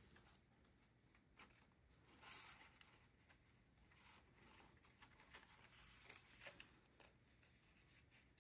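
Faint rustling and light taps of paper pieces being handled and pressed together, with a louder rustle about two seconds in.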